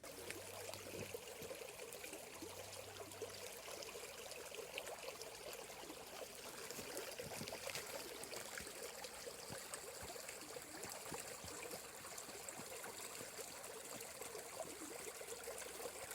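Flowing stream water running steadily, a constant rushing trickle that cuts in and out abruptly.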